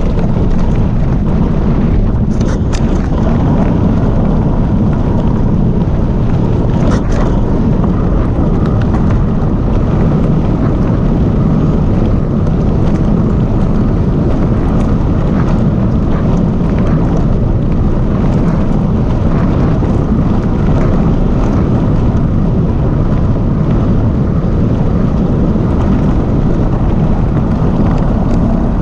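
Wind buffeting the microphone and a Calibre Bossnut mountain bike's tyres rolling fast over a packed dirt and gravel trail: a loud, steady rumble. A few sharp rattles come through about two and seven seconds in.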